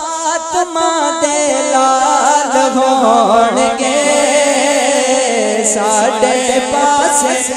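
A man singing a Punjabi devotional naat (kalam) into a microphone, drawing out long ornamented notes that waver up and down in pitch.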